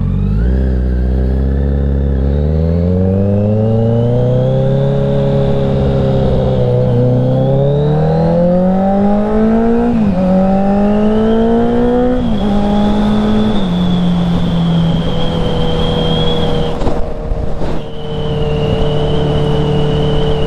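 Kawasaki Z900 inline-four engine pulling away and accelerating hard, its pitch climbing in runs broken by quick drops as it shifts up through the gears, then settling into a steady cruise for the second half. A faint high whine runs above it.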